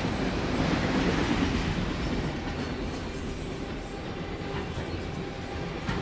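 Freight train of autorack cars rolling steadily past close by: steel wheels rumbling on the rails, with light clacking. It swells a little about a second in.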